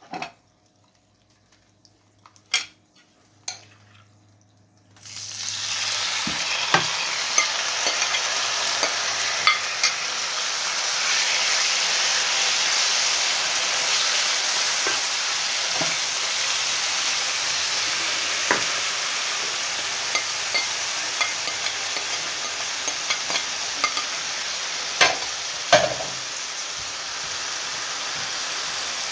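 A few spatula knocks against a quiet frying pan, then marinated chicken strips hit the hot oil about five seconds in and start a sudden loud sizzle. The sizzling runs on steadily while a spatula stirs the chicken, with occasional knocks against the pan.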